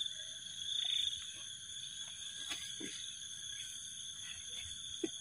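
Night chorus of insects and frogs: a steady high-pitched insect drone, with a pulsing call repeating about once a second that fades out after the first second or so.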